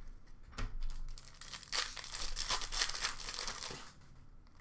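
Wrapper of a Bowman Chrome Lite baseball card pack crinkling as it is torn open, a crackly rustle lasting about three seconds that dies away shortly before the end.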